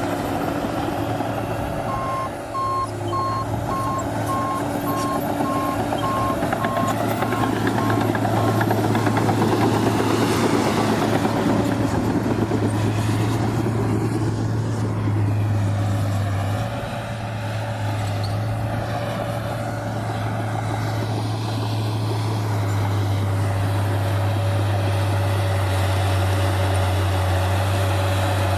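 New Holland D180C crawler dozer's diesel engine running steadily under load, heard from inside the cab. From about two seconds in to about nine seconds a reversing alarm beeps, about twice a second, as the machine backs up; the engine note shifts a little later on.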